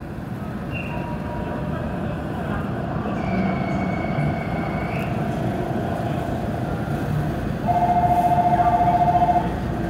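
Steady hum inside the cab of a JR Central 313 series electric train standing at a platform. A faint held tone sounds about three seconds in for two seconds. About eight seconds in, a loud, rapidly pulsing two-tone electronic beep sounds for under two seconds.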